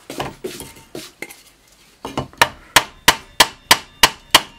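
Hammer blows on a block of wood held against a rusty drill press head, knocking a stuck part loose. A few lighter knocks come first, then from about two seconds in a steady run of sharp blows, about three a second.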